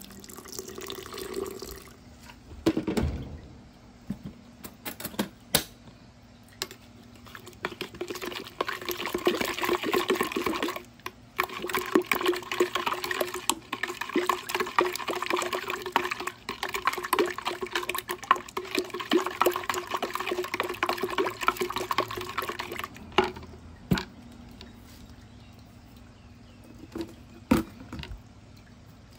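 Hot water pouring from an electric kettle into a plastic pitcher, then a knock. A spoon then stirs quickly in the pitcher for about fifteen seconds, ticking and scraping against the plastic sides, to dissolve the sugar in the milk. A few single knocks near the end.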